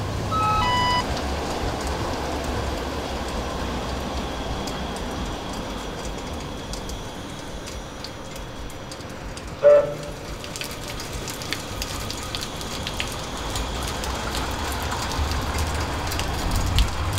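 Tram stop ambience in the rain: a steady low rumble under rainfall, with drops pattering and clicking more from about ten seconds in. Near the middle a tram sounds one short, loud horn toot. It opens with a quick run of electronic beeps at stepping pitches.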